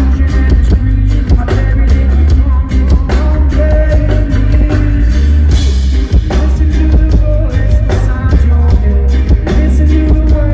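A live band playing loud music with heavy bass, a drum kit and guitar, with singing at times.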